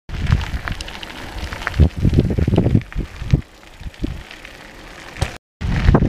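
Wind buffeting the microphone during a bicycle ride, an uneven low rumble with scattered knocks and rattles from the moving bike. The sound drops out completely for a moment a little past five seconds in.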